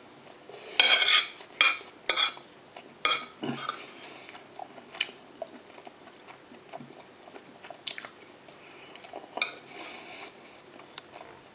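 Cutlery clinking and scraping against a plate or dish while eating, in irregular sharp clinks, loudest and busiest in the first few seconds.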